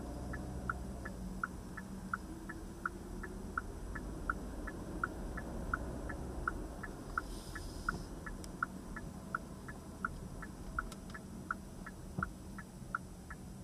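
A car's turn-signal indicator ticking steadily, about three ticks a second, over the low hum of the engine and tyres inside the cabin.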